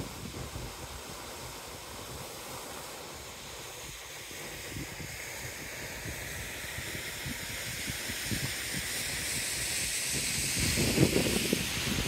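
Wind blowing over the microphone: a steady hiss with irregular low buffeting that grows louder over the second half, strongest near the end.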